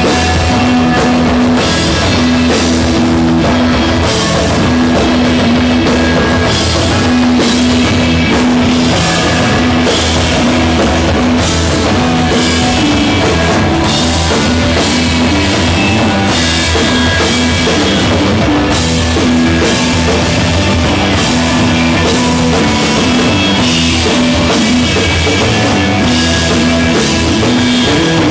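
Stoner rock band playing live: drum kit and electric guitar over sustained, repeating low notes, loud and steady, with no singing.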